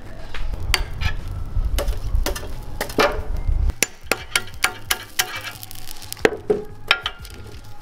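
Irregular sharp hammer knocks on a hot, smoking steel suspension arm as the melted rubber bushing is beaten out of its eye. A low rushing noise underneath cuts off about halfway through.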